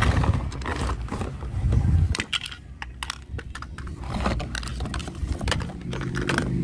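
Hands unpacking a toy airliner from its cardboard box: cardboard flaps rubbing and rustling, with many light clicks and knocks from the hard plastic fuselage and wing parts. A low steady hum sets in near the end.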